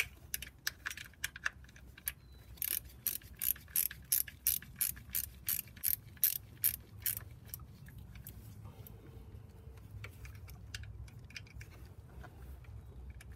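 A ratcheting wrench clicking as it tightens the power steering pump's front mounting bolts, a quick steady string of about two to three clicks a second in the middle, with fainter scattered clicks before and after.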